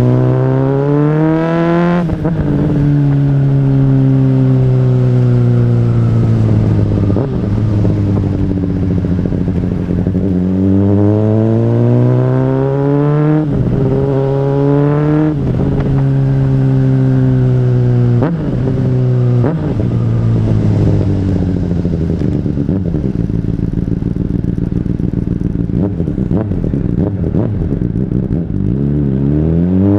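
Honda CBR600RR inline-four engine on the move, with an aftermarket Exaustip exhaust. It revs up through the gears, with sharp drops in pitch at upshifts about 2 s, 13 s and 15 s in. Between pulls it runs steadily, settles lower with a few quick pitch changes in the second half, and climbs again at the end.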